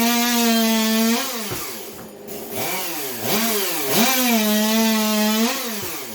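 Custom-built Stihl chainsaw's two-stroke engine screaming at wide-open throttle at a high steady pitch, then dropping and blipped up and down several times before being held wide open again, falling away near the end.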